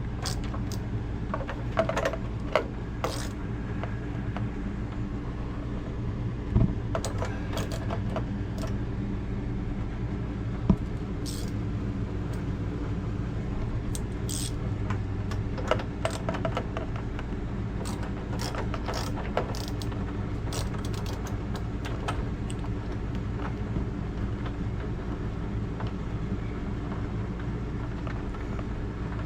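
Scattered small metal clicks and clinks of hand tools and hinge hardware as a refrigerator door's hinge is unscrewed, over a steady low hum.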